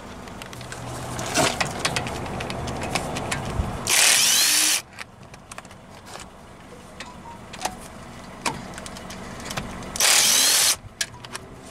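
A power tool spinning a socket to back out the brake caliper bolts, in two short bursts about six seconds apart, with clicks of metal tools on the caliper in between.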